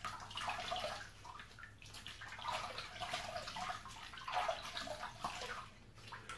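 Water splashing in a sink in uneven surges as a face is rinsed by hand between razor passes of a wet shave.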